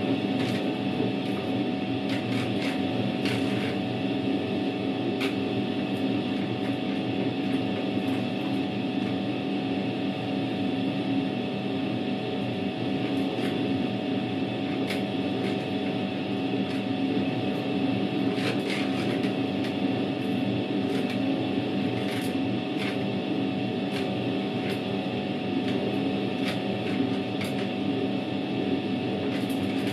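Światowit M4 impeller washing machine running a wash: a steady hum from its EDA SED-110-4 single-phase motor and impeller drive, with soapy water and laundry churning in the tub. Short irregular ticks come through the hum.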